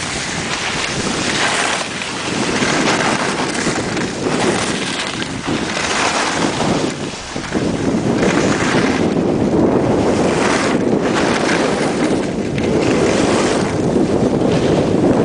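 Wind rushing over the microphone while skiing downhill, with skis hissing over the snow in surges that come every second or two.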